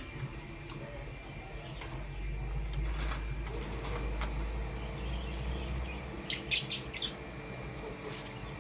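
Lovebird chirping: a few single short chirps, then a quick run of about five sharp high chirps a little past the middle, over a low background rumble.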